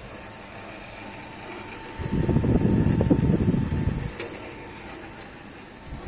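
Small window-style air conditioner running with a steady hum and a faint thin whine. About two seconds in, a louder low rumble lasts about two seconds.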